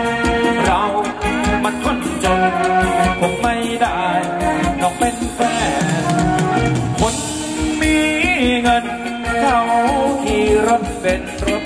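Live band playing Thai ramwong dance music: a steady drum beat under a melody line that bends up and down in pitch.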